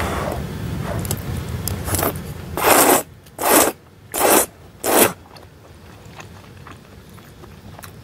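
Four short, loud scraping strokes, each under half a second and about two-thirds of a second apart, after a low rumble that fades out.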